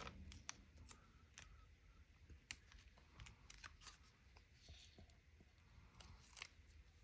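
Near silence, with faint scattered clicks and light paper handling as foam adhesive squares are peeled and pressed onto the back of a cardstock embellishment.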